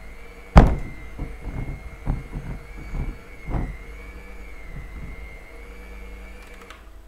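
Electric hand mixer running with a steady high whine while beating sponge-cake batter in a plastic bowl. The beaters knock hard against the bowl about half a second in, then knock more lightly several times over the next three seconds. The whine cuts off near the end.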